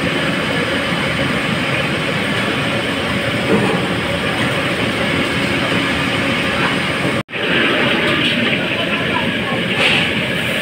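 A steady, loud background din of noise with no distinct events, cut off for an instant about seven seconds in and then continuing.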